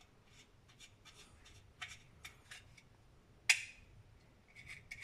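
Scattered small clicks and taps of a metal screw and nuts against a 3D-printed plastic camera case as the nuts are pulled into their holes. One sharper click comes about three and a half seconds in, and a quick run of small clicks near the end.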